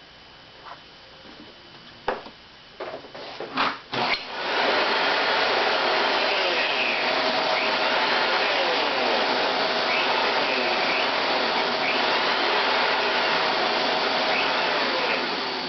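Several clicks and knocks of handling and switching, then a Kenmore Progressive canister vacuum cleaner starts about four seconds in and runs steadily at full suction, beginning to wind down near the end.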